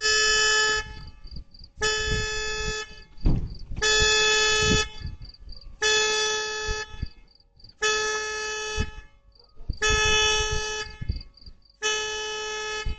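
Vehicle horn sounding in seven even blasts, each about a second long and about two seconds apart.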